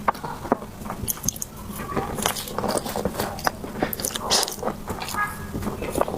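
Close-miked eating of soft desserts: bites and chewing with irregular mouth clicks and smacks.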